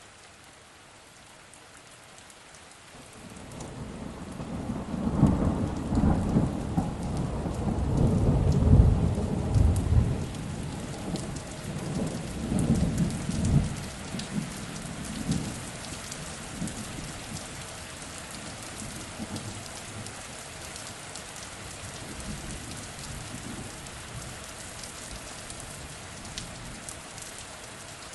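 Steady rain falling, with a long rolling thunder rumble that builds about three seconds in, peaks, and fades away over the next ten seconds or so, leaving the rain alone.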